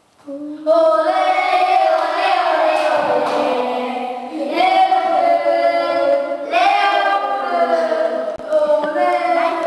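A child singing, holding long notes with slides in pitch, in several drawn-out phrases.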